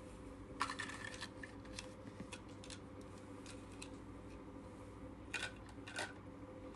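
Light, irregular clicks and taps of small plastic toys: a toy fishing scoop net and plastic toy fish being handled and knocked together. There is a cluster of clicks about half a second in and a couple more near the end.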